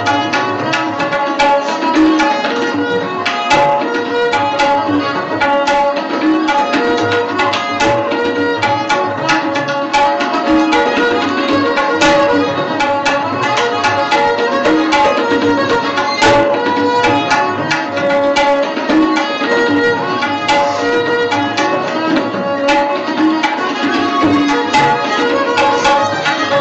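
Background instrumental music in a classical style: a melodic line over frequent hand-drum strokes at a steady level.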